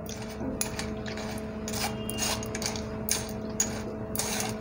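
Metal spoon scraping and pressing soaked tamarind pulp through a stainless-steel mesh sieve, in repeated irregular strokes about two a second. A steady low hum runs underneath.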